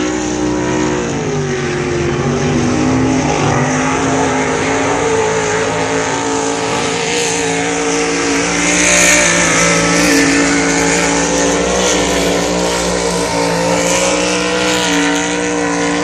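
Racing swamp buggy engines running hard at high revs as the buggies power through the water course. Their pitch dips and climbs again a couple of seconds in, and the sound is loudest about nine seconds in.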